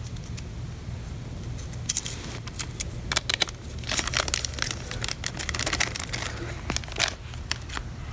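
Small zip-lock plastic bag crinkling as it is opened and handled, in irregular fits of crackle from about two seconds in, over a steady low hum.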